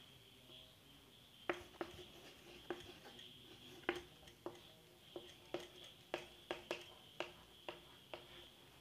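Faint, irregularly spaced short clicks and taps, about fifteen of them, over a low steady hiss.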